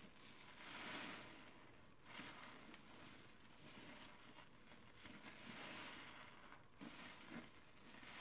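Faint wet squishing and foam crackle of a soapy sponge squeezed in a tub of sudsy water, in slow swells, with two sharper squelches near the end.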